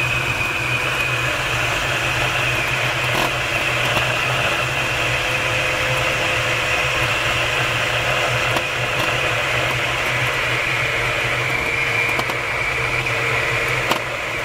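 Steady rush of airflow around the canopy of a DG-1001 two-seat glider gliding down on its landing approach, with a thin steady whistle over the hiss.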